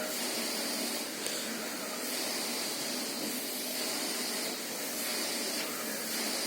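Vacuum cleaner running with a steady, even hiss.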